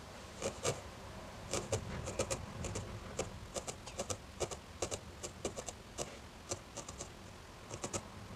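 A fine 40-gauge felting needle jabbing repeatedly into wool, each stab a short soft crunching click, coming a few a second in irregular runs, as a small ball of black wool is felted down to form an eye.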